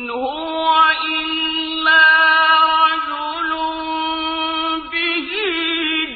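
Quranic recitation in Arabic, chanted melodically by a single reciter who holds long, steady notes, with a brief wavering ornament about five seconds in.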